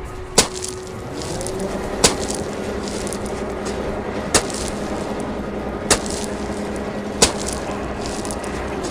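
Small electric motor of a toy construction vehicle running with a steady whine that rises slightly about a second and a half in. Five sharp clacks sound over it.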